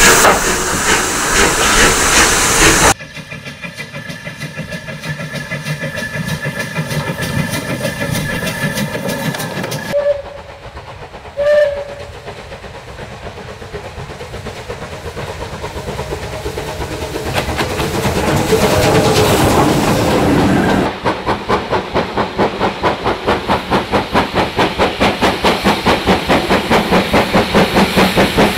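Steam locomotives at work, in several cut-together clips: loud hiss of steam as Bulleid locomotive 34053 starts its train away, then an approaching locomotive's exhaust growing louder with a brief whistle toot about eleven seconds in. From about three-quarters of the way through, a GWR locomotive climbs with a train, its exhaust beating sharply and regularly, several beats a second.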